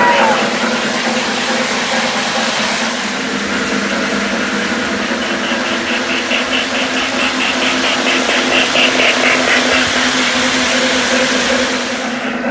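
Three-rail O gauge model trains running on the track: a steady electric hum and rolling wheel noise, with a stretch of rhythmic clicking in the middle. A locomotive whistle dies away just at the start.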